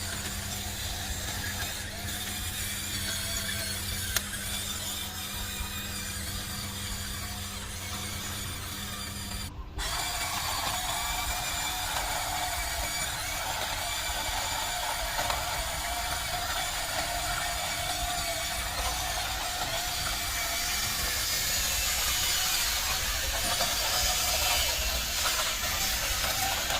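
Small electric motors and plastic gears of a radio-controlled toy construction vehicle whirring steadily. A brief break comes about ten seconds in, after which the whirring is slightly louder.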